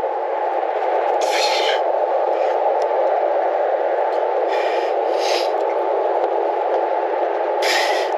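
Tyre-plug insertion tool being forced into a puncture in a car tyre's tread, pushing a sticky plug strip into the hole, in several short rasping scrapes over a steady rushing noise.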